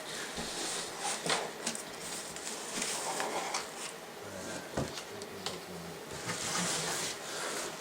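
Packaging being handled and unpacked: scattered light clicks and small knocks, with a longer rustle of plastic or cardboard near the end.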